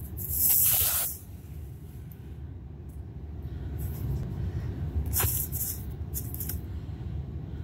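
Short scraping, rustling sounds of a small cardboard shipping box being handled and moved on a tile floor: once about half a second in, then again about five seconds in with a light click, over a steady low rumble.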